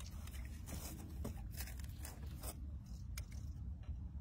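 Spinning fishing reel being cranked by hand in short, irregular rasping strokes, over a steady low rumble.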